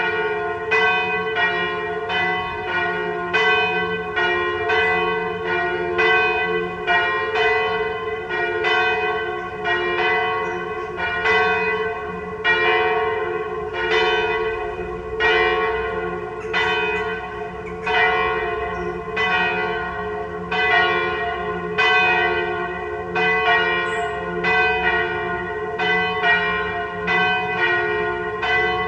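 Two swinging church bells pealing together: a 983 kg bell in F cast by Michiels in 1950 and a 771 kg bell in G-flat cast by Van Aerschodt in 1836, a semitone apart. Their clappers strike in a steady run, about one strike every two-thirds of a second, and each strike rings on into the next over a constant hum.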